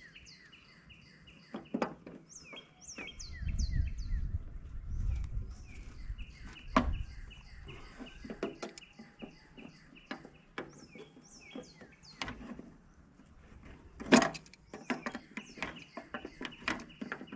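Small songbirds chirping over and over in quick falling notes, with scattered sharp clicks and knocks, louder about three-quarters of the way through. A low rumble comes in about four seconds in.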